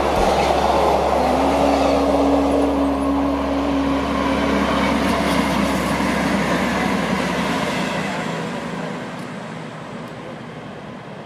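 Intermodal container freight train running through on the near track, its wagons rumbling past with a held tone for a few seconds. The noise then fades steadily over the last few seconds as the train draws away.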